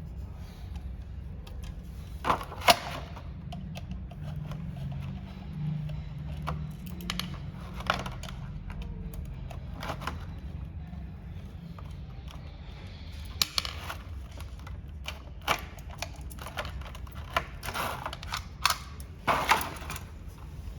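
Scattered sharp clicks and knocks, with one loud knock about three seconds in and a bunch of them near the end, over a steady low hum.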